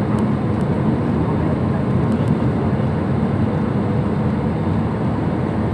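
Steady roar of an Airbus airliner's jet engines and rushing airflow heard inside the passenger cabin on final approach, with a low steady hum under it, the landing gear down.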